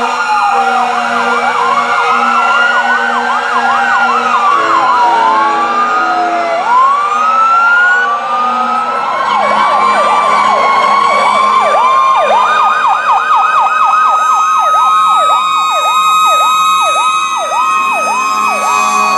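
Several emergency-vehicle sirens sounding at once from passing fire engines and ambulances. Slow wails rise and fall, and from about nine seconds in a fast yelp of roughly two sweeps a second takes over.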